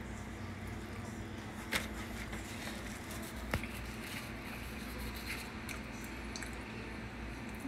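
Quiet mouth sounds of people biting into and chewing bacon-wrapped stuffed jalapeño poppers, over a steady low hum, with two short sharp clicks about two and three and a half seconds in.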